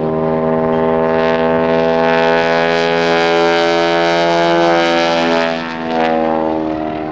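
Grumman Ag Cat biplane's radial engine and propeller drone loudly as it flies past. The steady tone sags and dips slightly in pitch about five and a half seconds in, then fades toward the end.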